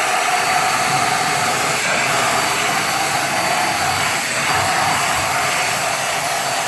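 Umoot corded handheld vacuum cleaner running steadily, a steady motor whine over the rush of sucked air.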